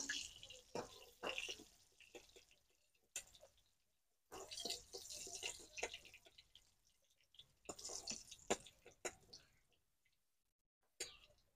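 Hot oil sizzling and crackling faintly in an aluminium kadai in two stretches as fried paneer cubes are lifted out with a steel spoon. Sharp clinks and scrapes of the spoon against the pan come between.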